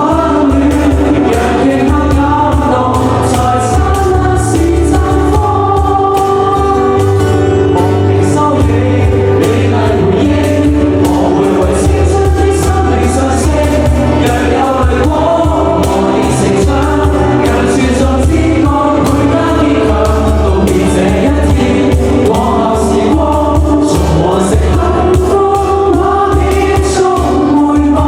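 Live rock band playing a song with several voices singing together over bass and drums.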